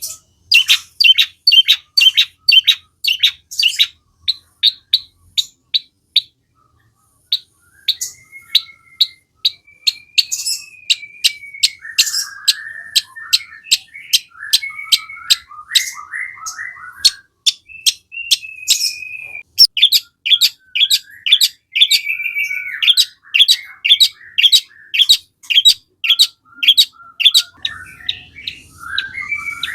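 Long-tailed shrike (cendet) singing: a rapid run of sharp, scratchy notes at about four a second, a brief pause about six seconds in, then the same rapid notes interwoven with lower, sliding warbled phrases — the bird's full 'isian' song with borrowed phrases.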